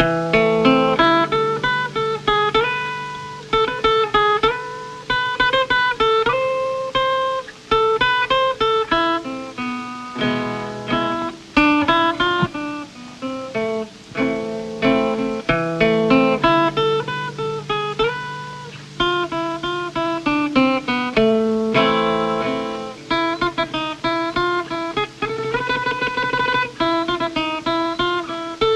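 Acoustic guitar music: a picked melody of quickly fading notes over steady bass notes.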